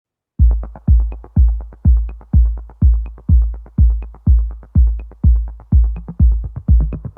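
Electronic dance music with a heavy kick drum on a steady beat, about two beats a second, and light clicks between the beats; it starts about half a second in after silence.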